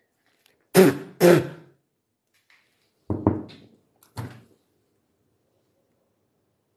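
Two loud thuds close together, then a few softer knocks a couple of seconds later.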